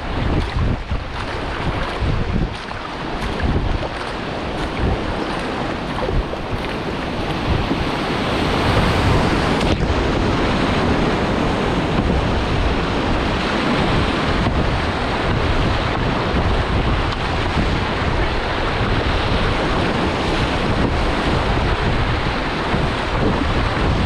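Rushing river water and paddle splashes from a wildwater racing kayak, growing louder about a third of the way in as the boat runs into a rapid. Wind buffets the microphone.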